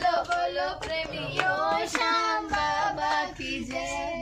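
A child singing a devotional bhajan in held, sliding notes, with a few hand claps.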